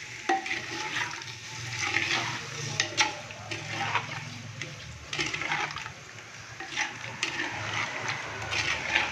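A spoon stirring chicken pieces in yogurt, tomatoes and water inside a clay handi: wet sloshing and squelching, with a few sharp knocks of the spoon against the clay pot.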